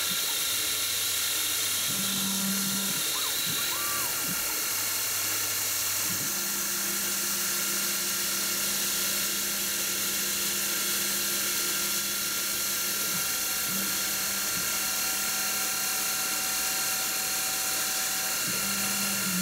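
Optimum milling machine under CNC control chamfering the edges of an aluminium plate: the spindle runs with a steady high hiss, and the axis motors hum in low steady tones that change pitch and stop and start as the table moves from corner to corner.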